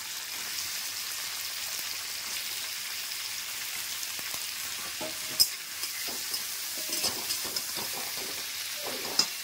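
Sliced onions and tomato wedges sizzling in hot oil in a metal kadai, with a steady hiss. From about five seconds in a spatula stirs and scrapes the pan, with two sharp knocks of the spatula on the metal.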